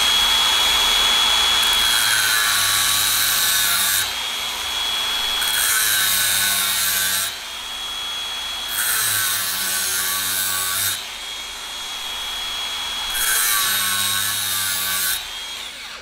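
Angle grinder with a thin cut-off disc cutting into the crimped metal ferrule of a hydraulic hose fitting, to relieve the crimp so the fitting can come off for reuse. It cuts in four passes of a few seconds each, the motor's high whine dropping in pitch under load and rising again between passes, and the sound falls away near the end.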